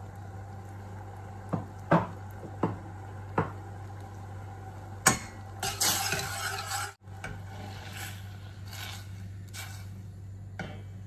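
A metal spoon clinking and scraping against a stainless steel saucepan while stirring coconut milk and jackfruit in syrup. There are several sharp clinks in the first few seconds, then a longer scraping stir about halfway through.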